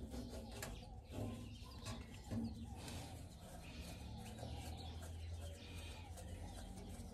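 Faint knocks of hand tools on metal parts of a tractor being taken apart, a few of them, with birds calling in the background.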